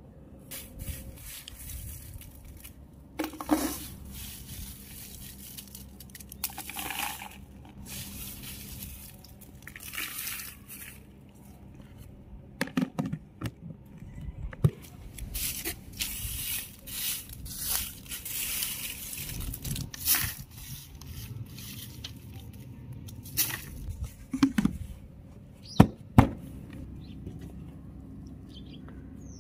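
Dry red chillies and newspaper rustling and crackling as they are gathered by hand and dropped into a plastic container, in irregular bursts with some scraping. A few sharp knocks, the loudest two in quick succession near the end.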